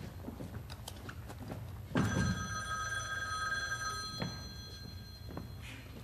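A telephone ringing: one ring starts about two seconds in and lasts about two seconds. Light knocks and footsteps on a stage floor sound around it.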